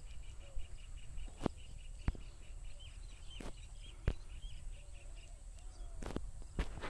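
A songbird repeating short high chirps, about three or four a second, which stop about two-thirds of the way through. A few sharp clicks and a steady low rumble are heard underneath.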